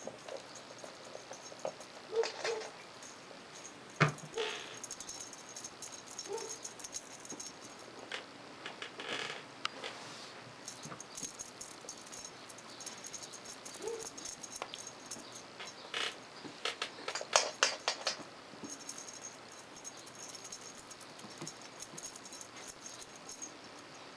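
Young kittens playing: paws pattering and scrabbling on a wooden floor and in a fabric cat bed, with bursts of toy clatter, a sharp knock about four seconds in, and a few brief, faint mews.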